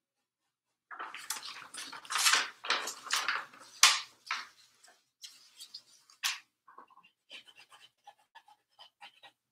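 Paper towel and a cloth rag rustling and rubbing against a canvas as wet oil paint is wiped off it. The loudest rustling comes in the first few seconds, then gives way to softer, scattered scuffs and ticks.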